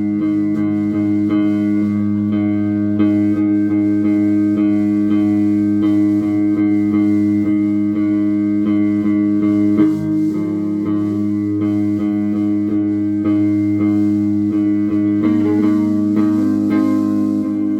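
A band playing an instrumental passage: plucked guitar notes over steady held chords and a bass line.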